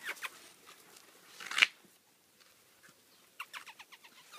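Seven-week-old American Staffordshire terrier puppies yelping and squeaking as they play-bite. There is one loud squeal about one and a half seconds in, then a quick run of short yelps near the end.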